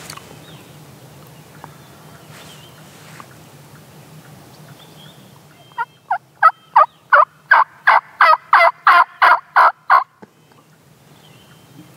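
Hen turkey yelping on a mouth call, meant to draw a gobbler in: a run of about thirteen loud, evenly spaced yelps, roughly three a second. It starts about halfway in, the first notes softer, and stops a couple of seconds before the end.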